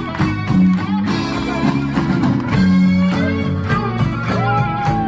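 Rock music led by guitar over a steady drum beat, with a held guitar note that bends down in pitch near the end.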